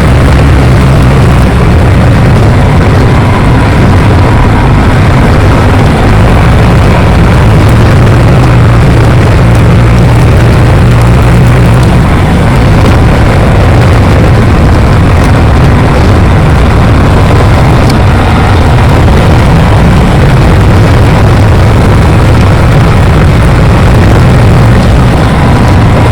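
Bulldozer's diesel engine running steadily, with a deep, even drone that doesn't rise or fall.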